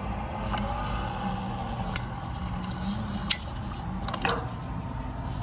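Sounds from inside a sewer line: a steady low rumble with a few short sharp squeaks and clicks, one with a falling pitch about four seconds in.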